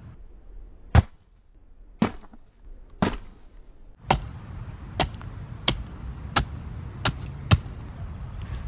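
Obsidian-headed axe chopping into a cantaloupe: a series of sharp chops, first three about a second apart, then about six quicker ones roughly two-thirds of a second apart.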